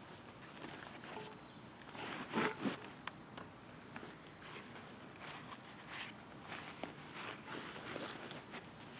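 Camera gear being unpacked from a fabric backpack: scattered rustling and light clicks and knocks as a mirrorless camera and lens are handled and set down on a stone tabletop, loudest about two and a half seconds in.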